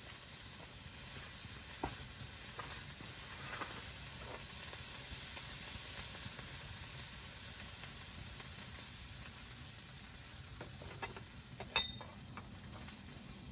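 Food sizzling steadily as it fries over a campfire, with a few light clicks, the sharpest near the end.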